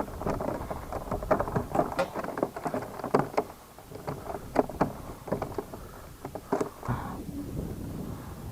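Irregular splashing and knocking: quick, uneven bursts that thin out near the end.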